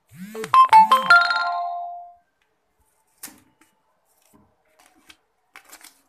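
A short electronic chime like a ringtone: two quick swooping tones, then a few bright notes that ring out and fade within about two seconds. A few faint clicks follow.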